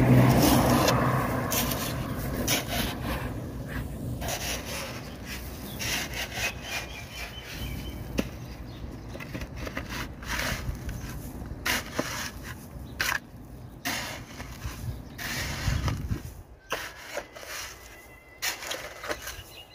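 A shovel digging into dry, gravelly soil: repeated irregular scrapes and scoops of grit and stones.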